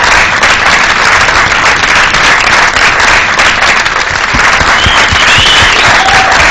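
Studio audience applauding steadily and loudly.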